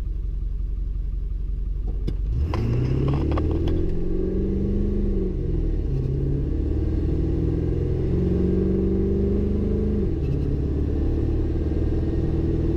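Ford 7.3 Power Stroke turbo-diesel V8, heard from inside the cab, idling and then launching hard under full throttle about two and a half seconds in. The engine note climbs and drops back at two gear changes, a few seconds apart.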